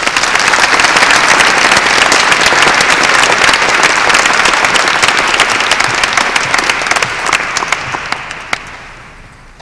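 Audience applauding: a dense patter of many hands clapping that starts all at once, holds steady and fades away over the last couple of seconds.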